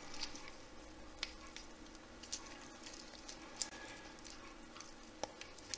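Faint handling of small Playmobil plastic parts: light rustling and a few scattered small clicks as pins are pushed through a toy tool panel.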